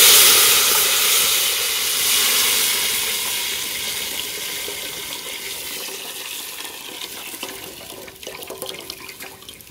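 Tamarind water poured in a stream into a pot of hot oil with tempering: a sudden loud splashing sizzle that fades steadily as the pour goes on, ending in a few drips.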